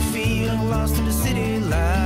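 Background country-style music with guitar, over a bass line that steps between notes about every half second, with gliding melody notes above.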